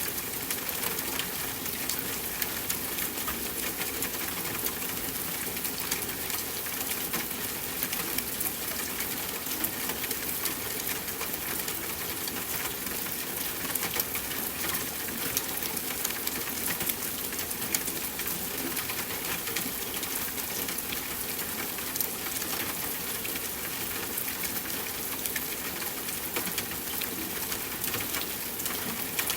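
Steady rainfall, an even hiss with many separate drop clicks scattered through it.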